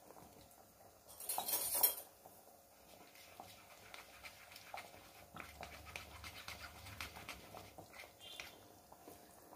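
Metal spoon scraping and tapping in a plastic mesh tea strainer as melted jaggery syrup is pressed through it into a pot. A short scratchy rasp comes about a second in, then faint small clicks.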